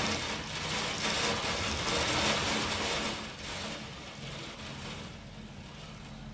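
Hail hitting a window: a dense, hissing clatter that is loudest for the first three seconds and then eases off, over a low steady hum.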